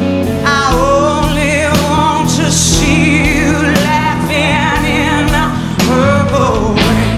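Live rock band playing a slow ballad: a woman sings a long-held, wavering lead vocal over electric guitar and band, with a slow, steady drum beat. The vocal comes in about half a second in.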